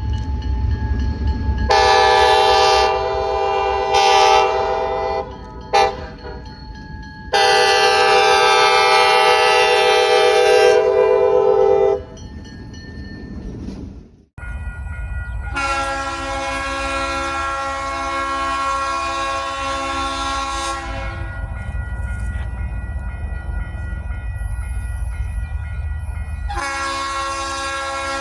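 Diesel locomotive horn of KCS 2038, a GP32ECO, blowing a series of long blasts: a blast about two seconds in, a short toot, a long blast, then more long blasts after a break. A steady low diesel locomotive rumble runs under the horn.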